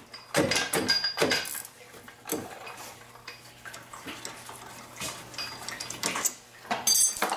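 A hand wrench and steel brake-caliper parts clinking and clanking as a caliper bolt is worked loose on a car's front brake. Scattered sharp metallic clinks, some ringing briefly, with a quick cluster of clinks near the end.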